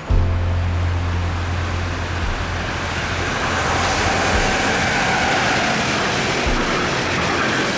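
Electric locomotive hauling a freight train of hopper wagons past at speed, close by: a low rumble with a rushing noise of wheels on rails that swells from about three seconds in, and a faint tone that falls in pitch as the locomotive goes by.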